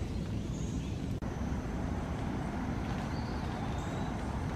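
Steady low outdoor background rumble with no distinct events in it. It cuts out for an instant just over a second in.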